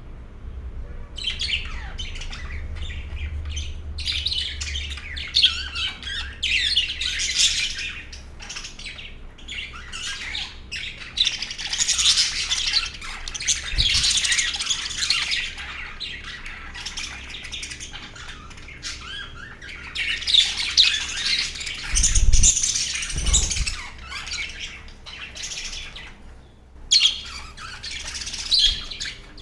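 A flock of budgerigars chattering and chirping, many birds at once in overlapping bouts, starting about a second in, with a brief lull near the end. A couple of low thumps sound under the chatter about two-thirds of the way through.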